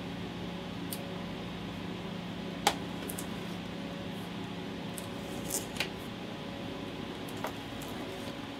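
Steady room hum with a few light clicks and taps from handling a pocket knife over a cardboard box, one sharper click about a third of the way in.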